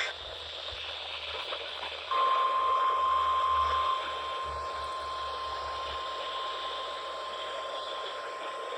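Weather radio receiver hissing with reception noise, then about two seconds in a single steady tone near 1 kHz comes on, louder for about two seconds and then holding on more softly.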